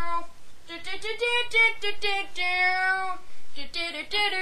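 A single high voice singing a tune with no accompaniment: a run of short notes, then one long held note past the middle, then more short notes.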